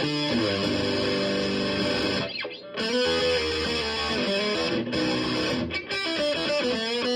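Les Paul Junior-copy electric guitar played through a DIY fuzz pedal into a 1980s Fender Super Champ amp: distorted fuzz chords and riffs, with the pedal's bass and mid boost switches both down. The sound dips briefly about two and a half seconds in, then the playing goes on.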